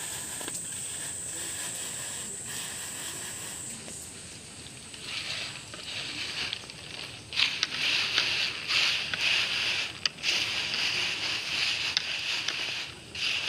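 A hand raking and sifting a heap of dry insects across a woven bamboo winnowing tray: a dry rustling rattle with small clicks, coming in uneven strokes. It starts about five seconds in and grows louder after about seven seconds.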